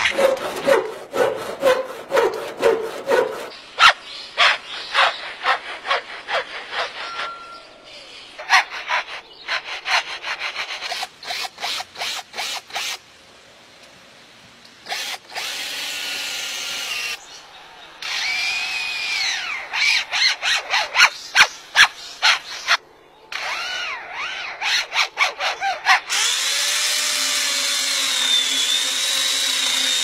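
Lyrebird mimicking man-made sounds: rapid trains of sharp clicks and bangs like gunfire, mixed with whistled glides, and near the end a steady buzzing like a power tool for about four seconds.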